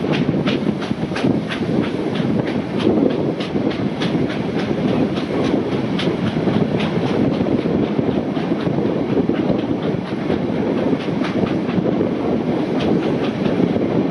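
Passenger carriage of a steam-hauled train running at speed: a steady rush of wheel and wind noise with a clickety-clack of wheels over rail joints, sharp clicks about three a second that thin out in the second half.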